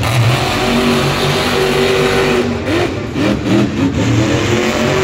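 Monster truck's supercharged V8 engine running loud, with several quick revs up and down in the middle.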